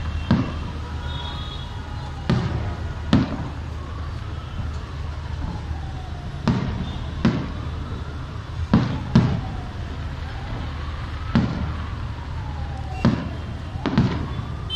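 Aerial fireworks going off, about a dozen sharp bangs at irregular intervals. A siren wails slowly up and down in the background. A steady low rumble runs underneath.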